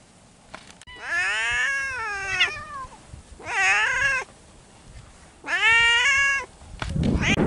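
Cats meowing: three long, loud meows, each rising and then falling in pitch, followed near the end by a burst of rustling noise.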